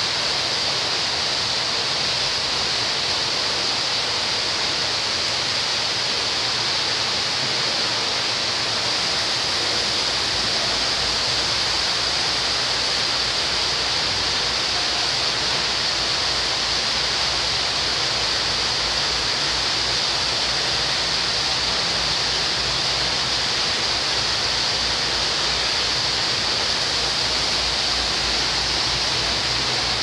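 Steady rushing noise, strongest in the upper range, with a low rumble joining about ten seconds in.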